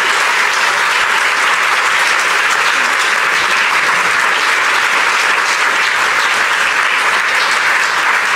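Audience applauding: dense, even clapping from a full hall, held steady throughout.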